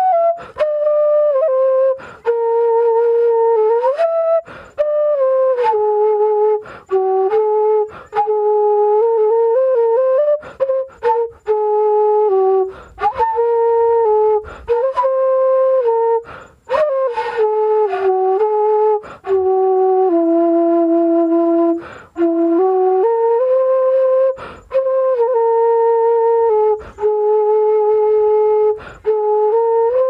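Bansuri, a side-blown bamboo flute, playing a slow solo melody: held notes that slide up and down into one another, broken by short gaps for breath every couple of seconds. The lowest note is held longest, a little past the middle.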